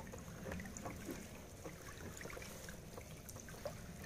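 Faint water trickling and dripping with scattered light splashes and ticks as a hauled-up dragon bubo net trap drains, over a low steady rumble.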